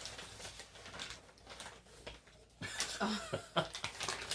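Chewing and crunching of crispy fried chicken and fries: a run of short, sharp crunchy clicks, with a brief murmur about three seconds in.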